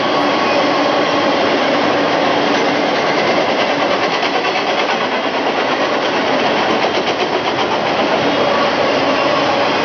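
Double-stack intermodal container freight cars rolling past, a steady noise of steel wheels running on the rails.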